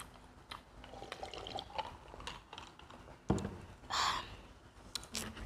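Iced cola sipped from a glass mason jar, the liquid and ice moving, with small clicks throughout. About three seconds in the jar is set down on the table with a sharp knock, followed by a brief rushing noise.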